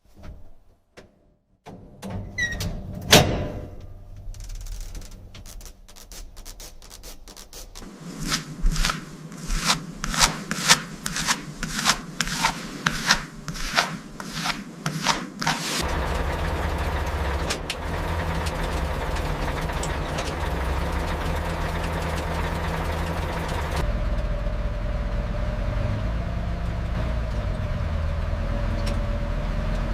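Workshop sounds: a few knocks, then a run of rhythmic rubbing or scraping strokes, about two a second, giving way about halfway through to a steady low running noise like a heavy engine.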